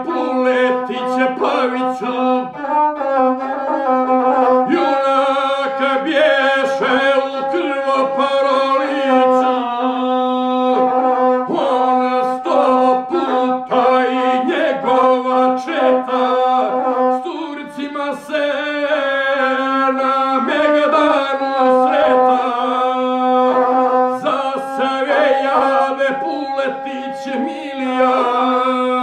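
Gusle, the single-string bowed Serbian folk fiddle, played with a bow in a steady, wavering melody over a held low note, accompanying a man's sung epic chant.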